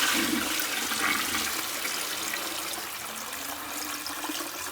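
Toilet flushing: a rush of water, loudest at the start and slowly tapering off as the flush runs down.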